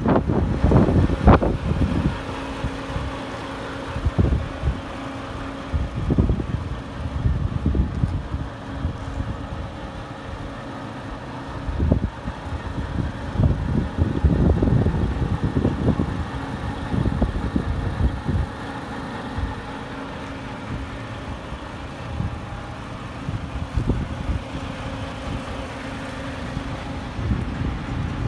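DAF XF tractor unit's Paccar 510 hp diesel engine idling steadily, with irregular gusts of wind buffeting the microphone.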